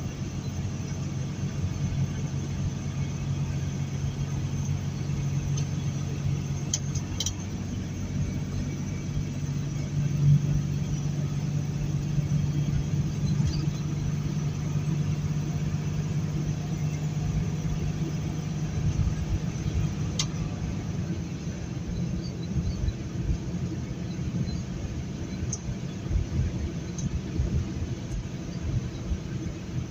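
Heavily loaded tractor-trailer running at highway speed on wet pavement: a steady low engine hum over tyre and road noise, with a couple of faint ticks.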